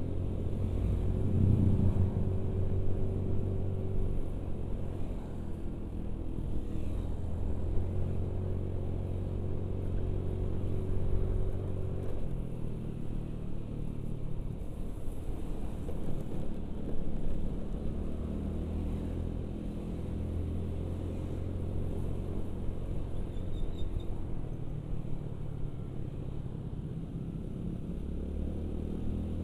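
A carburetted Honda Beat scooter's engine running steadily while riding, with road and wind noise; the engine note shifts about twelve seconds in.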